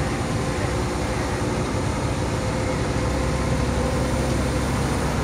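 Hitachi hydraulic excavator's diesel engine running steadily under load as it digs and lifts a bucket of soil, a continuous low rumble.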